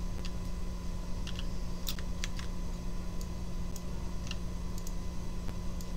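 Irregular computer keyboard and mouse clicks, about a dozen sharp ticks, over a steady low electrical hum.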